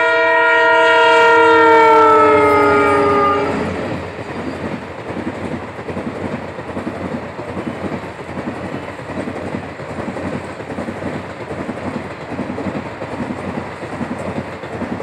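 A locomotive horn sounds long and loud as the train passes, its chord dropping a little in pitch before it cuts off about three and a half seconds in. Then the passenger coaches run past with the steady rumble and rhythmic clickety-clack of steel wheels over the rails.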